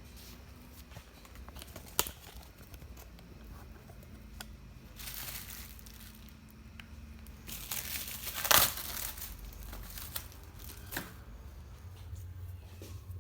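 Hands working on a scooter's air filter and airbox: rustling, crinkling handling noise with several sharp clicks, the loudest about eight and a half seconds in.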